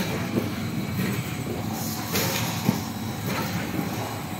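Production-line machinery running steadily in a factory, a continuous mechanical din with a few brief knocks, the sharpest about two and a half seconds in.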